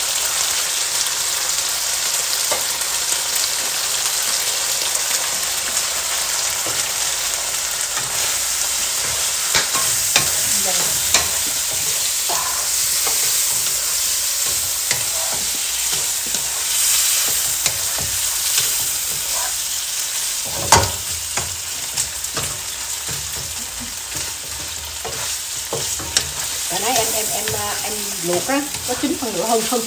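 Mushrooms and onion sizzling in a hot nonstick wok, stirred with a wooden spatula that scrapes and knocks against the pan, with one sharper knock about two-thirds of the way through.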